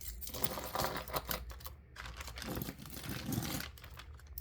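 Costume jewelry being handled: rustling with many small clicks and clinks of beads and metal parts, busiest in the first couple of seconds.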